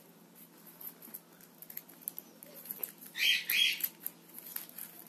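Foil wrapper of a Kinder Surprise egg being peeled off by hand, with faint crinkles and small clicks. About three seconds in come two short, high squeaks close together, louder than the foil.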